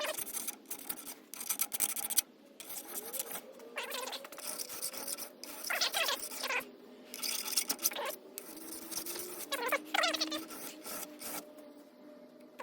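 A metal file scraping along a chainsaw guide bar's rails in a run of strokes about a second apart, some with a brief squeal. It is flattening a worn ridge on the bottom of the bar so the chain stops catching in the wood.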